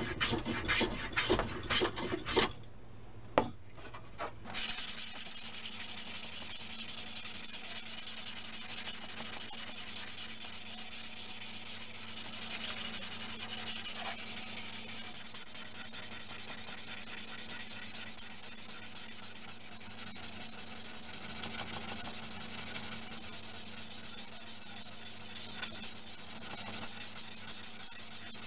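A hand plane takes quick strokes along a wooden board, then comes a sharp knock about three seconds in. From there on, sandpaper is rubbed back and forth by hand along the board's edge, a steady continuous sanding.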